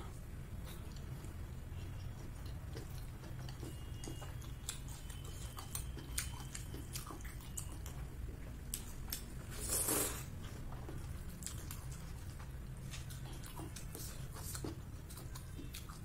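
Close-up eating sounds: a person chewing chicken momos and noodles, with many small wet mouth clicks and smacks, and one louder noisy burst about ten seconds in, as noodles are taken. A steady low hum runs underneath.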